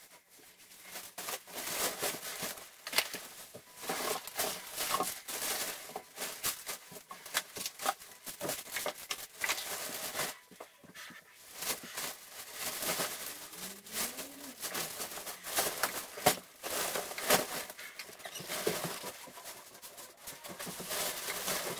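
Black plastic garbage bags rustling and crinkling in quick, irregular crackles as trash is handled and stuffed into them.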